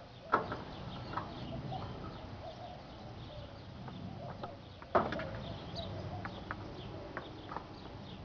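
Metal parts of a gutted microwave being handled and pulled loose: two sharp knocks about four and a half seconds apart, with lighter clicks and rattling between them. Faint short chirps sound high up in the background.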